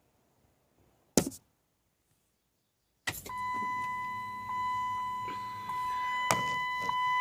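2005 Dodge Durango Hemi V8 during an attempt to start: a single click about a second in, then from about three seconds a steady high-pitched electrical whine with a low hum beneath it, and another click near the end. The engine does not catch.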